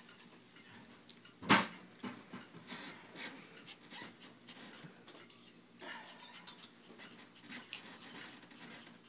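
Small poodle-mix puppy panting, with one sharp thump about a second and a half in.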